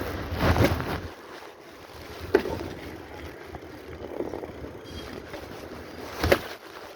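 Wind buffeting the microphone during a bicycle ride, a steady rumbling rush that swells about half a second in. Two short sharp knocks come about four seconds apart.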